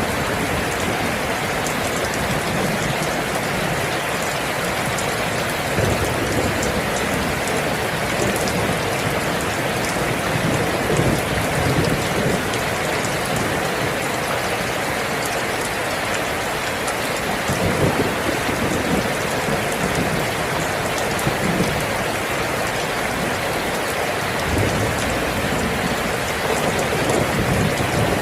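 Steady rain falling, a dense even hiss of many drops, with a few brief low swells along the way.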